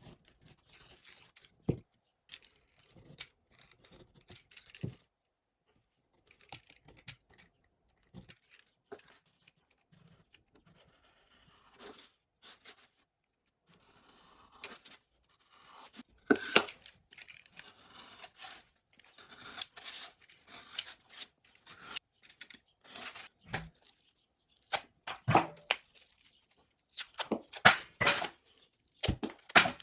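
Hand work on drywall: intermittent scraping, scratching and tearing, with scattered sharp knocks, getting busier and louder in the second half.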